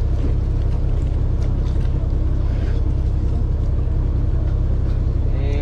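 Small sightseeing boat's engine running with a steady low drone, heard from on board.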